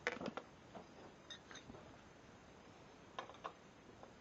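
A few faint clicks and knocks from handling the sliding compound miter saw, a cluster at the start and two more about three seconds in, over quiet room tone.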